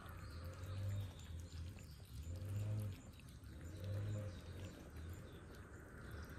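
Cats eating dry food, with small crunching clicks, over a low hum that swells about every second and a half.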